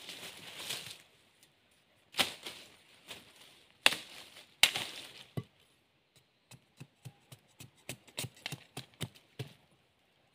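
Machete chopping a bamboo pole: a rustle of dry leaves as the pole is moved, then three hard chops about two seconds apart, followed by a quick run of lighter knife strokes, a few a second, as the wood is trimmed and shaped.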